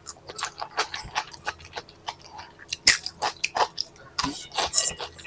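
Close-miked eating: a mouth chewing with many quick wet clicks and crunches, the loudest about three seconds in and a longer crunch a little after four seconds.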